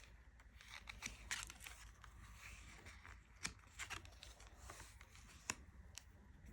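Faint handling of tarot cards: scattered soft clicks and brief swishes as cards are slid out and laid down, with a sharper snap about three and a half seconds in and another near the end.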